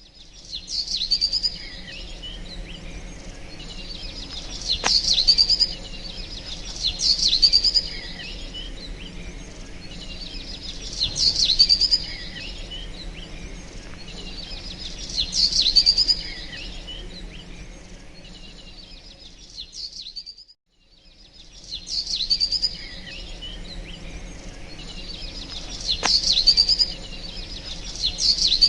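Birds chirping and calling in repeated bursts every two to four seconds over a faint steady background hiss. The sound cuts out completely for a moment about two-thirds of the way through.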